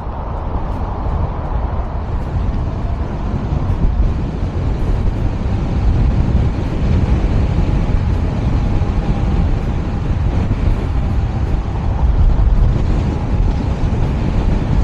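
Wind noise on the microphone and tyre rumble from a Nami Blast Max electric scooter riding fast. A faint steady whine runs through the middle.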